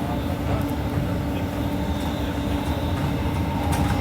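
Steady running noise inside a moving electric commuter train carriage: a low rumble with a steady hum.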